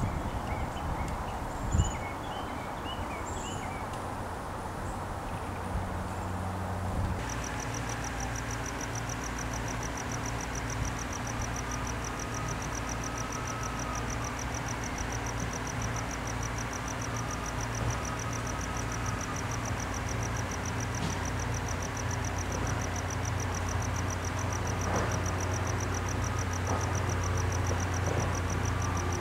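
Outdoor ambience: short bird-like chirps over a low steady hum. About seven seconds in the sound changes abruptly to a louder steady low hum with a fast, even, high-pitched pulsing above it.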